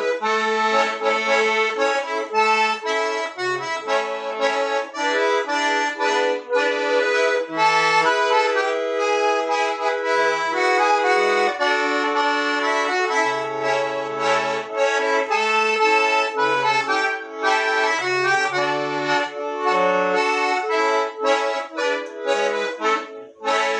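Accordion (sanfona) playing a solo tune: a melody over held chords, with short low bass notes sounding now and then.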